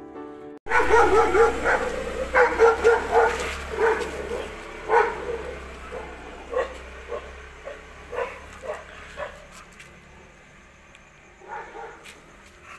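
Dogs barking in a fast, loud volley that starts abruptly about half a second in, then thins out into scattered, fainter barks, with a couple more near the end.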